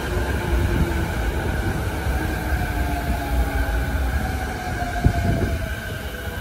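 Electric commuter train moving slowly past the platform: a low rumble with a motor whine that falls in pitch as it slows. A single sharp knock comes about five seconds in.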